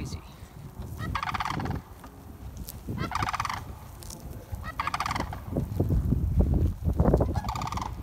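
Sandhill cranes giving loud, rolling, rattling calls, four in all, about every two seconds. A low rumbling noise rises under the later calls.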